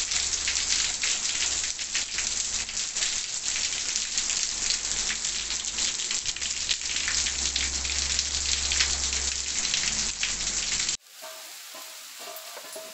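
Heavy rain pouring onto a concrete yard and brick walls: a dense, steady hiss full of individual drop splashes. About eleven seconds in it cuts to a much fainter hiss.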